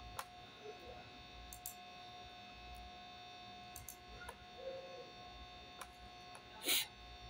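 Faint steady electrical hum with a few scattered small clicks of a computer mouse as the 3D view is moved and rotated, and one brief louder noise near the end.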